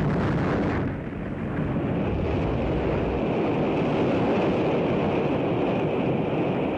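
Continuous rumbling roar of an Atlas-Centaur rocket exploding in flight, dipping briefly about a second in.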